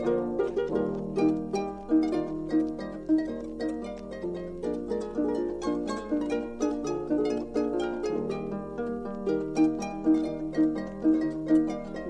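Solo harp playing a brisk Tyrolean folk tune, quick plucked melody notes over a steady bass-and-chord accompaniment, played back from a 1961 vinyl 45 record.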